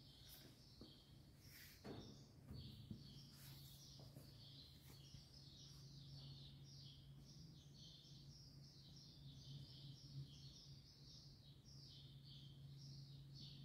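Near silence: faint room tone with a low steady hum and faint, continuous high chirping.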